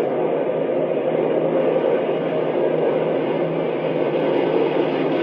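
Steady drone of a large mass of warplanes flying overhead, many engines humming together.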